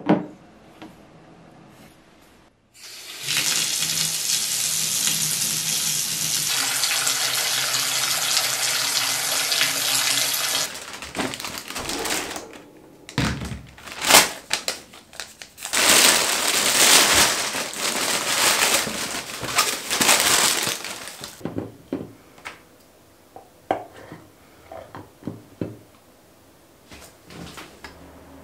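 Water running steadily for about eight seconds. Then a plastic bag rustles in surges as it is untied and pulled open, followed by scattered light knocks and rustles of a cardboard box being unpacked.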